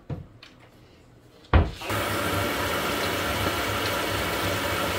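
A light click, then a knock about a second and a half in, then a kitchen tap running steadily into the sink.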